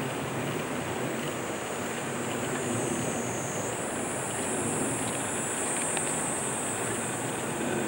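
Steady rushing of a river running high after torrential rain. Over it is a high, thin buzz that steps up in pitch about halfway through.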